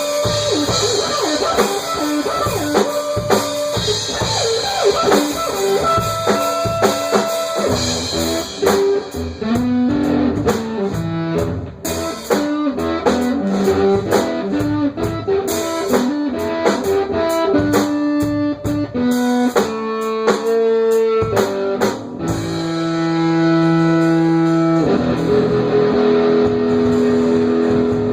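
Blues-rock band playing an instrumental passage on guitar and drum kit, with stepping guitar runs, ending on long held chords near the end.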